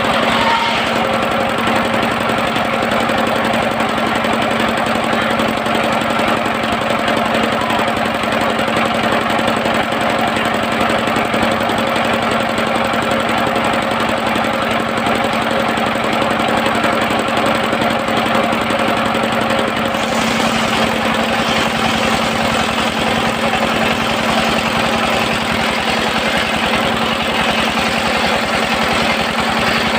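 The engine of a circular-saw sawmill running steadily with a continuous even hum.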